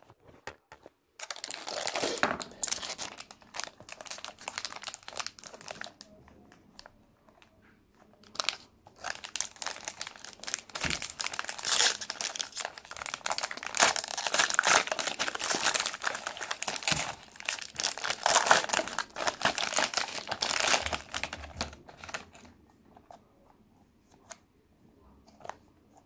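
Foil pouch of an SX-70 instant film pack being torn open and crinkled by hand. The crackling starts about a second in and pauses for a couple of seconds. A longer, louder stretch of crinkling follows, then it dies away to faint handling near the end.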